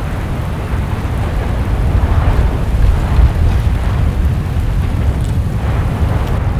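Volcanic eruption: a lava-filled crater cone giving a deep, continuous rumble with a churning hiss above it, swelling louder around the middle.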